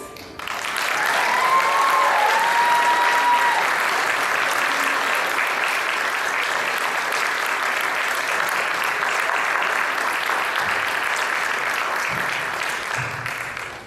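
Audience clapping at the end of a children's song, with one drawn-out whoop of a cheer about a second in; the clapping dies away near the end.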